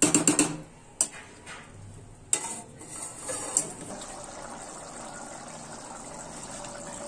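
A steel spoon scraping and clinking against a steel pot of cooked rice, with a quick run of sharp clinks at the start and single metal knocks about one, two and a half and three and a half seconds in as a steel lid is set on the pot. After that comes a steady hiss of the chana curry simmering on the gas stove.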